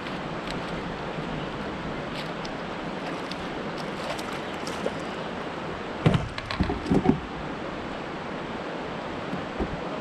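Steady rush of river water and wind on the microphone from a kayak, with a brief cluster of sharp knocks about six seconds in.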